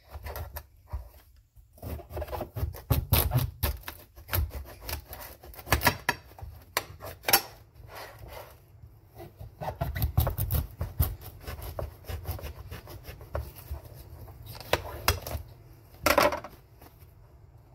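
A santoku-style kitchen knife sawing through the tough rind of a microwaved spaghetti squash: irregular rasping strokes with knocks against the plate beneath.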